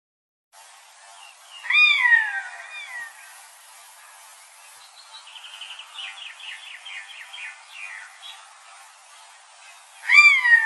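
Birds calling: a loud call that slides down in pitch about two seconds in and again near the end, with a quick run of short, high chirping notes between them.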